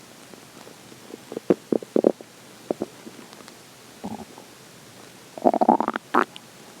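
A hungry human stomach growling: short gurgles and pops come in clusters, with a longer, louder run of gurgling near the end.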